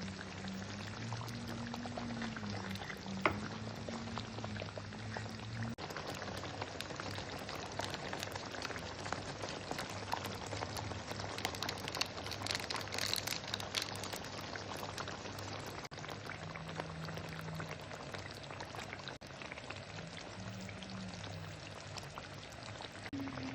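Food frying in a pan: a steady sizzling crackle, with one sharp pop about three seconds in. Soft background music plays underneath.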